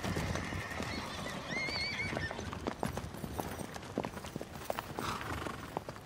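Hoofbeats of several horses galloping over dry, stony ground, with a horse giving a short, wavering whinny about a second and a half in.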